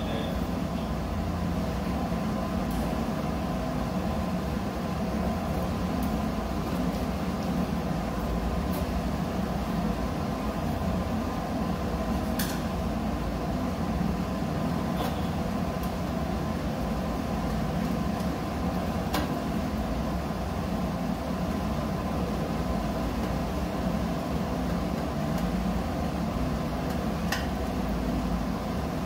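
Steady low drone of running machinery and ventilation, unchanging throughout, with a few small isolated clicks from hand work on the wiring.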